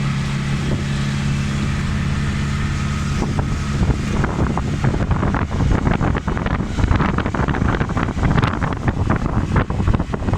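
A steady low drone of a running vehicle engine. After about four seconds it gives way to gusty wind buffeting the microphone, in irregular rough blasts.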